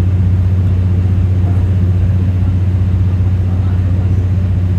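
Deep, steady diesel engine drone heard inside a 12 series passenger coach, with no change in speed, typical of the Suhafu 12's underfloor generator engine that powers the coach's lights and air-conditioning.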